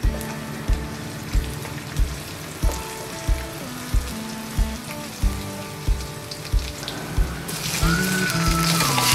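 Garlic and chili frying in hot oil in a steel wok, under background music with a steady beat. Near the end the sizzling jumps much louder as wet, blanched pig blood curd slices hit the hot oil.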